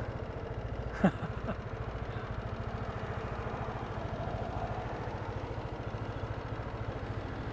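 Motorbike engine idling steadily with an even low pulse, with a brief sharp sound about a second in.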